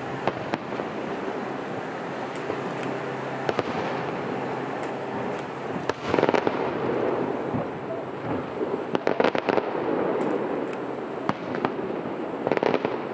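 Aerial fireworks shells bursting: sharp bangs every few seconds, a loud burst about six seconds in that trails on for a second or two, and quick clusters of reports around nine seconds and near the end.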